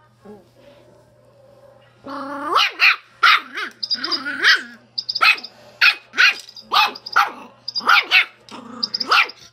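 Schipperke barking repeatedly at a toy chick, about a dozen sharp barks beginning some two seconds in, the first drawn out and rising. Between the barks the toy gives short, high electronic cheeps.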